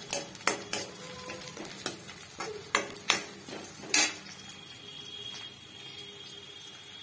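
Metal ladle stirring chopped onions and green chillies frying in oil in a kadhai: a steady sizzle with sharp, irregular clinks and scrapes of the ladle against the pan, the loudest about four seconds in, then mostly just the sizzle.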